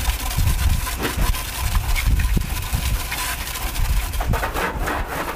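Jet of water from a pistol-grip garden hose spray nozzle hitting a car's front wheel and lower body panels, a steady spattering hiss, giving the wheel a soaking.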